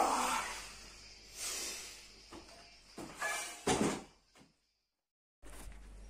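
Forceful breaths during a seated barbell press, then the plate-loaded barbell set back onto the rack with metal knocks and a clunk about three and a half seconds in. The sound then cuts out completely for about a second.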